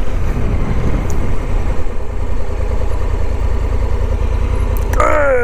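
Honda Africa Twin 1100's parallel-twin engine running with a steady low rumble as the motorcycle creeps through a slow U-turn. Near the end an engine note falls in pitch.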